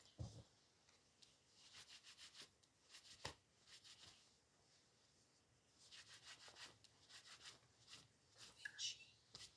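Faint rustling and swishing of clothes being handled, shaken out and folded, in short bursts of quick strokes.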